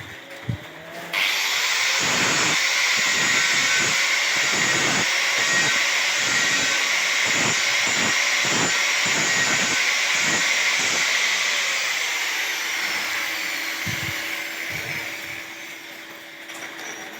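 Angle grinder grinding the welds smooth on a steel railing: a steady, high-pitched grinding hiss. It starts suddenly about a second in and tapers off over the last few seconds.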